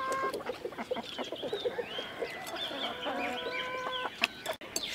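Chickens clucking, with several drawn-out calls, among scattered short clicks.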